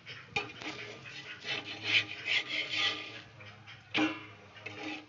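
Scraping and rubbing against a frying pan as a radish paratha is worked while it fries in oil, with two sharp metal clinks, one about half a second in and one about four seconds in.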